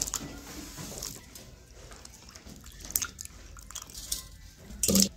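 Raw potato wedges dropped into a glass bowl of water and washed by hand, with light splashing, sloshing and small knocks of the pieces. A brief louder bump comes near the end.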